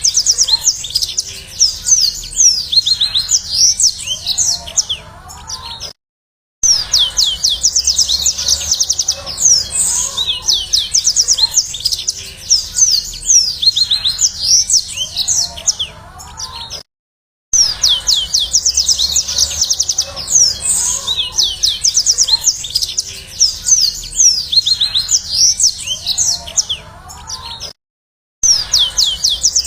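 A Mozambique canary (yellow-fronted canary) sings in fast, high twittering trills. The same stretch of song is looped about every eleven seconds, with a half-second gap of silence between repeats.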